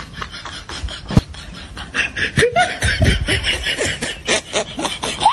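People laughing: quick bursts of chuckles and snickers that grow louder about two seconds in, with a sharp knock about a second in.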